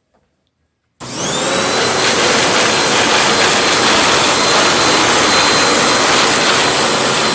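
Hoover WindTunnel upright vacuum cleaner switched on about a second in: its motor spins up with a rising whine, then runs steadily and loudly.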